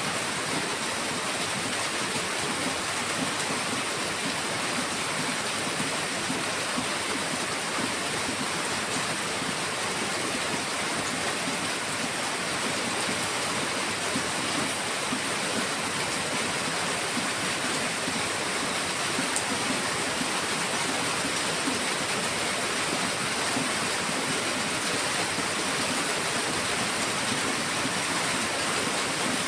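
Heavy rain pouring down in a steady, dense hiss with no let-up.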